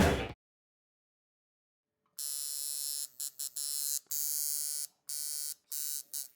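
Guitar music ends just after the start. After about two seconds of silence, a tattoo machine buzzes in short bursts, stopping and starting about six times.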